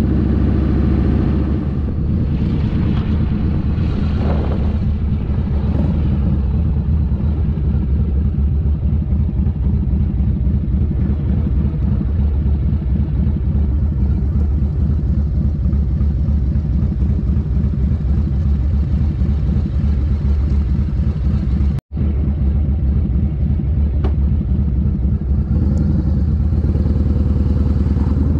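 1999 Harley-Davidson Fat Boy's 1340 cc Evolution V-twin running under way, a steady low, loud exhaust note heard from the rider's seat. It cuts out for a split second about three quarters of the way through and picks up a little near the end.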